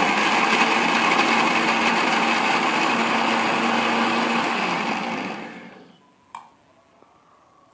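Electric mixer grinder with a stainless-steel jar running at full speed, grinding a dry white ingredient with the lid held down by hand. It is switched off about five seconds in and the motor spins down over about a second. A short knock follows.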